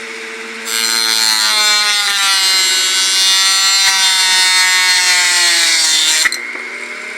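Homemade mini saw driven by a salvaged blender motor, cutting through a sheet of material. The motor hums steadily at first; from about a second in, a loud cutting whine comes in and its pitch sags a little under the load. The whine stops abruptly near the end, leaving the motor running free.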